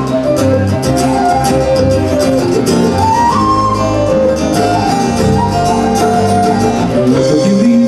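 Live folk band playing an instrumental passage: an acoustic guitar strummed under a whistle carrying the melody.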